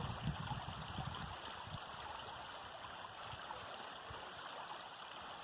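Small woodland stream running steadily over a rocky drop: an even, fairly quiet water noise.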